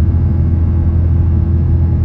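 Airliner cabin noise during the climb after takeoff: the Airbus A330-900's Rolls-Royce Trent 7000 engines give a steady, loud, deep rumble with a steady hum over it.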